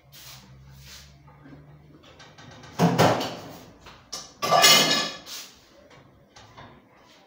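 Kitchen handling clatter: two loud knocks of dishes and a metal pot being moved about, about three and four and a half seconds in, the second with a metallic ring, followed by a few lighter clicks.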